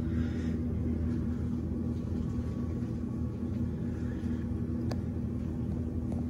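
Steady low rumble and hum of Union Pacific diesel locomotives idling in a rail yard. A single sharp click comes about five seconds in.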